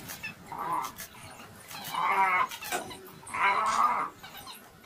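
Animal calls from African wild dogs fighting a spotted hyena: three wavering, pitched cries of about half a second each, roughly a second and a half apart.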